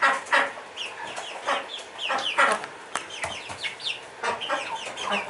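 A flock of young Rhode Island Red chickens calling, with many short, high, falling peeps that overlap.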